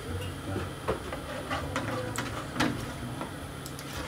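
Kitchen clatter from cooking at a stove: scattered light knocks and clinks of pans and utensils, about half a dozen, over a low steady hum.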